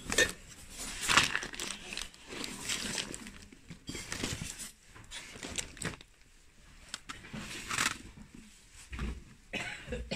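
Cloth and plastic rustling and crinkling in irregular bursts as hands rummage through a crate of towels, plastic bags and bubble-wrap packaging.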